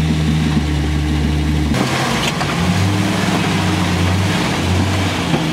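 Jeep Wrangler YJ's engine running at low revs as it crawls over boulders, the revs rising and falling.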